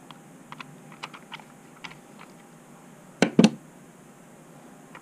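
Small clicks and taps of a Scotty fish finder mount and Garmin fish finder holder being handled and fitted together by hand, with two louder knocks about three seconds in.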